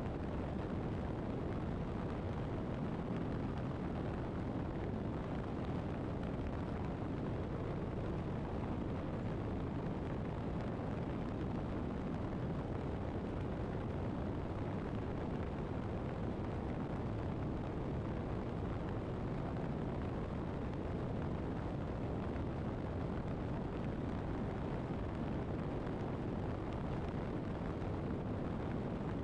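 Steady wind noise and road rumble from a motorcycle cruising at highway speed, buffeting a camera mounted behind the fairing.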